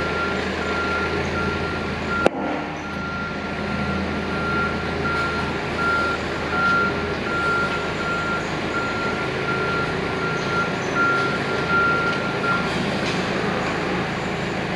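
Propane forklift engine running while its warning alarm beeps over and over, the beeping stopping near the end. A single sharp knock about two seconds in.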